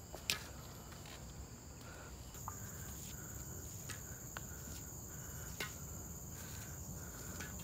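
Forest insects chirring in a steady high-pitched drone that grows stronger about two seconds in, with a few faint footsteps on the dirt trail.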